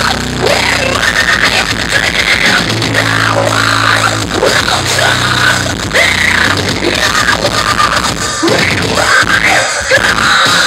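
Metal band playing live at full volume: heavy distorted guitars and pounding drums, recorded loud enough to sound harsh and crowded.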